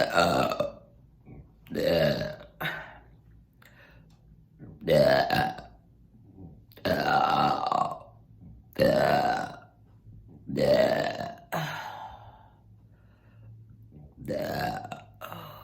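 Loud, deliberate burps, one after another: about seven long burps of roughly a second each, some two seconds apart, with a few short smaller ones between.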